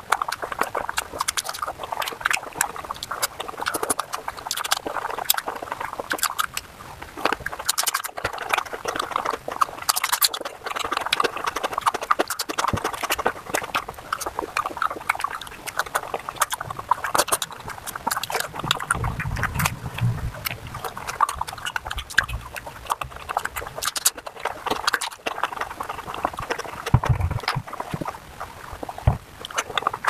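Sped-up, close-miked mouth sounds of a person eating soft, saucy palak paneer: rapid, pitched-up wet chewing, squelching and lip-smacking clicks, with a few duller low knocks about two-thirds of the way in and again near the end.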